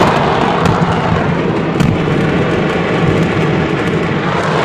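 Stockpiled fireworks going off en masse: a dense, continuous rumble of blasts and crackling, with a couple of sharper cracks standing out in the first two seconds.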